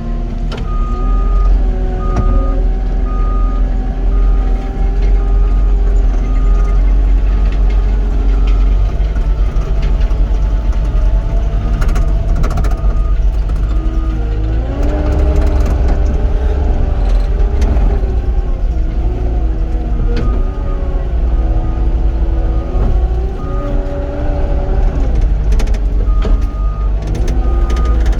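Cat 259D compact track loader's diesel engine running under load, its pitch rising and falling as the machine works the dirt back and forth. Its reverse alarm beeps about once a second through the first half and again near the end, as the loader backs up while back-dragging.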